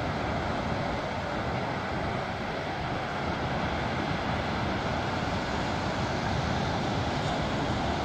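Steady roar of surf breaking on a sandy beach, with wind buffeting the microphone.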